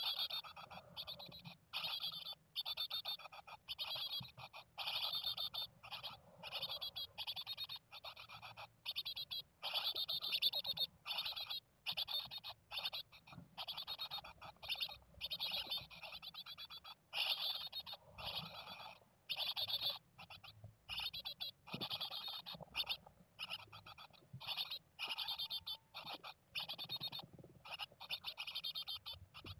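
Sixteen-day-old Japanese tit nestlings in a nest box calling without pause: quick, high, rasping chirps, one run after another about every half second.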